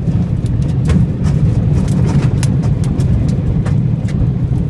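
Tornado-force wind buffeting a truck, heard from inside the cab: a loud, steady low rumble with frequent sharp ticks and knocks against the body.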